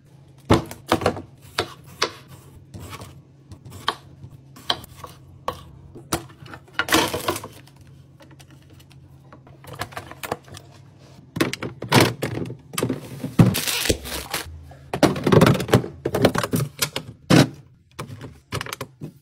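Clear plastic food-storage containers and fridge drawers being handled: a run of irregular plastic clicks and knocks as lids are pressed shut and bins set down, with short stretches of sliding and rustling in between.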